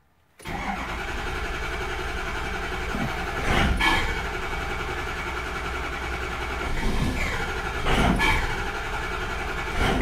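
Ford 6.0L Power Stroke V8 diesel being cranked by its starter, which kicks in about half a second in and turns steadily with a few louder swells. The engine cranks without firing: a crank, no-start.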